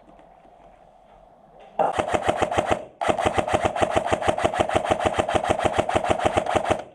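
Airsoft electric gun firing on full auto: a burst of about a second, then after a short pause a longer burst of about four seconds, each a fast, even mechanical rattle of shots.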